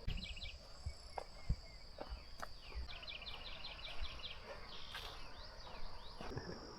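Steady high-pitched insect drone in the woods, with runs of quick bird chirps early on and again about three seconds in. Scattered soft footsteps on the trail.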